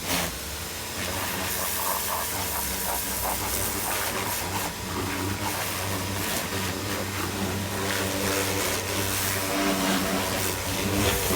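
Pressure washer running, its water spray hissing steadily over the hum of the pump motor.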